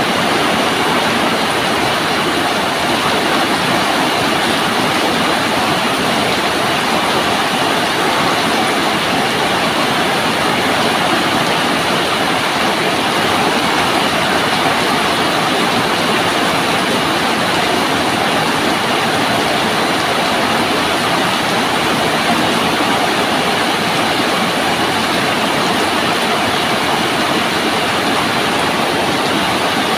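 Steady rain falling, an unbroken even hiss of water.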